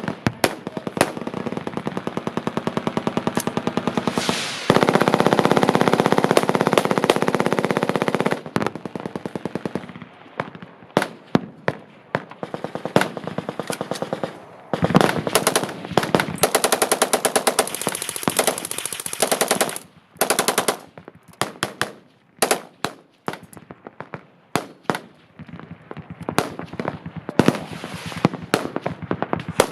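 Several machine guns firing automatic bursts at once, the rapid shots overlapping into continuous fire. The fire is heaviest in the first third, then breaks into shorter separate bursts with brief lulls.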